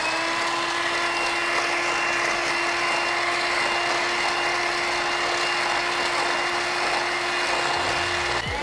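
Electric hand mixer running on high, its beaters whipping heavy cream in a stainless steel bowl: a steady motor whine over the hiss of the beaters. Near the end it cuts out for a moment and spins back up.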